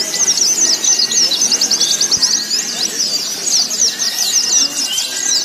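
Many white-eyes (pleci) singing at once: a dense, continuous chorus of rapid, high overlapping twitters.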